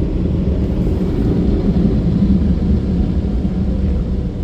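Dryer blowers of a Mark VII Aquajet GT-300 in-bay car wash running, a steady loud low rumble.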